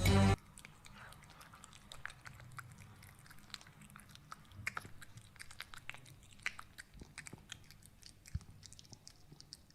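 Chewing and crunching, a long run of irregular crisp little crunches: an animal eating something crunchy close to the microphone. Music cuts off just as it begins.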